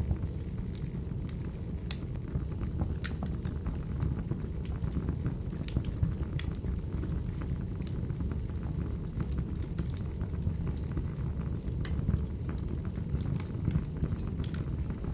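Wood fire crackling: a steady low rumble of burning logs with irregular sharp pops and snaps, about a dozen scattered through.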